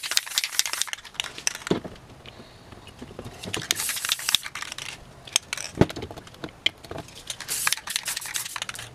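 Aerosol spray paint cans hissing in several short bursts, with sharp clicks and knocks of the metal cans being handled, picked up and set back down.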